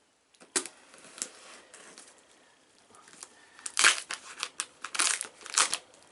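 Packing material crinkling and tearing as a shipping box is unpacked by hand. There are a few sharp crackles at first, then busier, louder crinkling from about four seconds in.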